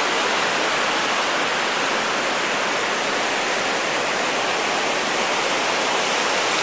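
Ocean surf washing onto a sandy beach, heard as a steady, even hiss with no single wave break standing out.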